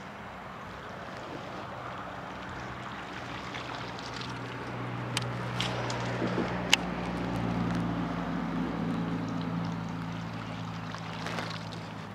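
Boat engine running with a low steady hum that swells over the middle seconds and eases off near the end, over wind and water noise. A few sharp clicks come about halfway through.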